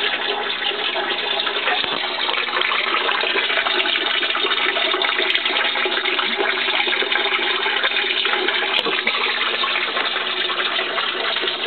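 Steady rush of running water that never lets up.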